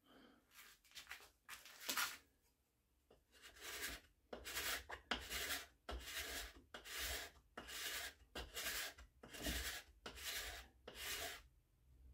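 Steel card scraper drawn in repeated strokes across a hardwood board, a dry rasping scrape with each pass: a few light strokes, then from about three seconds in a steady run of about one and a half strokes a second. The freshly sharpened scraper is cutting again with its small turned edge.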